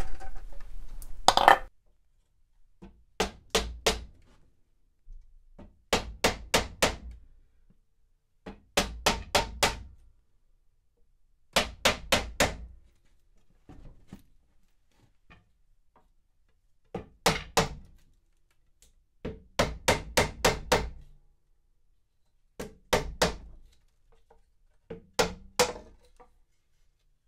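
Wooden mallet striking a solid oak chair seat to knock it loose from the back spindles and take the chair apart. The blows come as sharp knocks in quick bursts of three to five, with a pause of a second or two between bursts.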